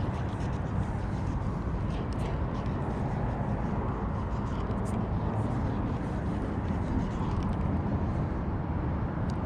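Steady wind buffeting the microphone, a dense low rumble with a few faint ticks.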